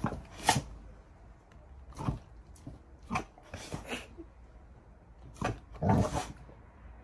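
A dog giving a series of short barks on a "speak" command, begging for a treat, about six or seven in all, the loudest near the start and about six seconds in.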